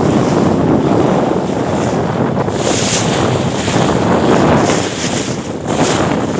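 Wind buffeting the microphone over choppy sea water, with waves washing against the boat. The rush drops briefly about five and a half seconds in.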